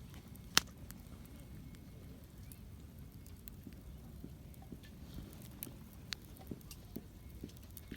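Wood campfire crackling, with one sharp, loud pop about half a second in and a handful of smaller pops in the second half, over a low steady rumble.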